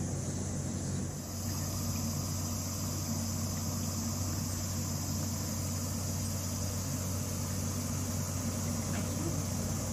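Steady low machine hum with a faint high hiss over it.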